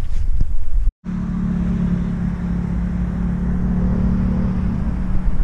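Wind rumbling on the camera microphone. After a brief cut about a second in, a steady low hum runs under the wind noise and fades near the end.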